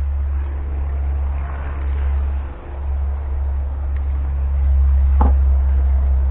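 Old auction lathe running on a newly made flat drive belt: a loud, steady low drone, with one sharp click about five seconds in.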